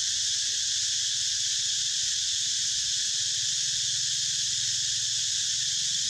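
Steady, high-pitched insect chorus with a faint low hum beneath it.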